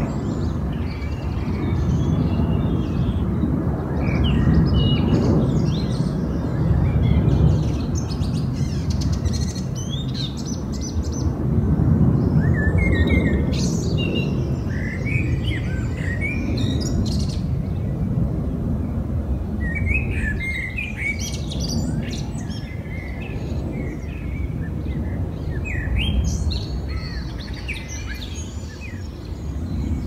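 Songbirds chirping and trilling in scattered bursts over a loud low rumble that swells and eases every few seconds.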